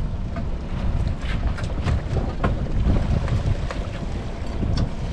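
Wind rumbling on the microphone, with scattered knocks and rattles of lobster pots being handled on a small boat's deck.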